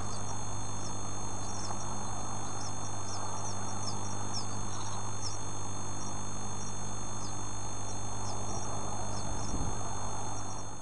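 Bird chicks peeping: short, thin, high cheeps that slide down in pitch, about one or two a second, over a steady electrical hum and hiss.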